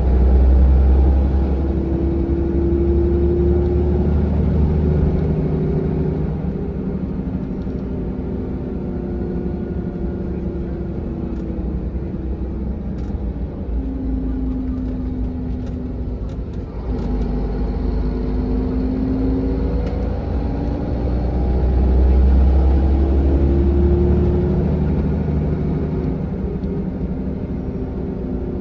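Cabin sound of a 2001 Volvo B7R bus under way: its six-cylinder diesel drones with a heavy low rumble, and a whine rises in pitch several times as the bus pulls away and gathers speed. The rumble is loudest at the start and again about two-thirds of the way in.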